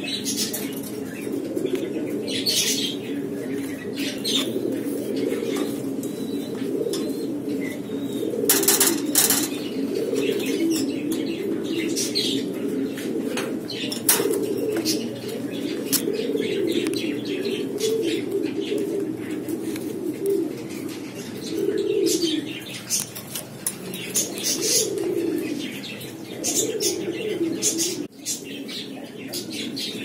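Domestic pigeons cooing in a loft, a steady low warbling chorus, broken by short bursts of wing flapping; the loudest flapping comes about nine seconds in.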